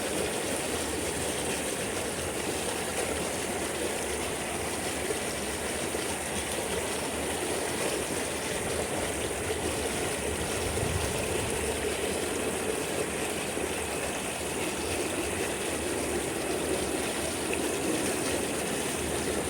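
Running water flowing steadily, a constant stream-like rush with no breaks.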